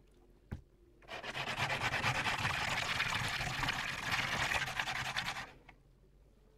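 A pebble rubbed back and forth on wet sandpaper, a steady gritty rasp lasting about four seconds, as the stone is wet-sanded smooth. A single small tap comes just before it.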